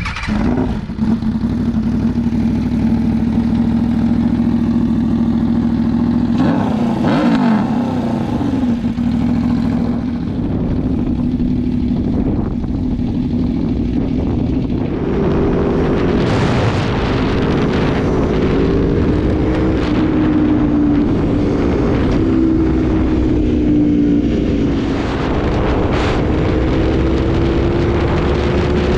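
Aprilia 1100 V4 motorcycle engine running as the bike is ridden: a steady note at first, a quick sweep in pitch about seven seconds in, then a note that rises and falls with the throttle and more wind hiss from about halfway.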